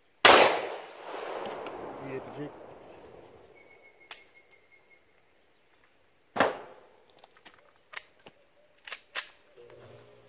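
Two loud 9mm pistol shots about six seconds apart, each followed by a long echo. Several fainter sharp cracks follow in the last few seconds.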